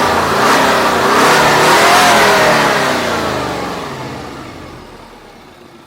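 A car engine swelling in loudness and pitch to a peak about two seconds in, then slowly dying away.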